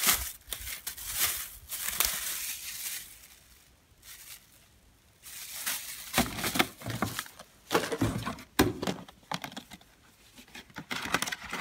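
Plastic wrapping crinkling and rustling around circular metal brush-cutter blades as they are handled, with cardboard packaging shuffled and a few sharp taps. There is a quiet pause about four seconds in.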